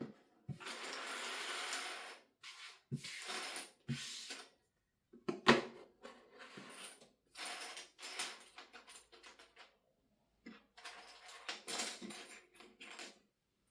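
Lego pieces being handled: small plastic parts clicking and rattling, with stretches of rustling, and a sharper click about five and a half seconds in.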